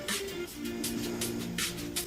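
Background music: held notes with a light percussive tick now and then.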